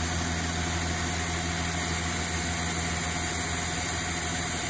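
Milling machine spindle at about 1,000 RPM driving a well-worn 3/8-inch solid carbide end mill through 440C stainless steel at a slow feed: a steady hum under the hiss of the mist coolant spray.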